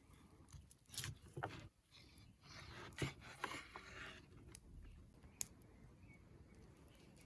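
Close handling noises: rustling and scraping, with a few sharp clicks and knocks, the loudest about three seconds in.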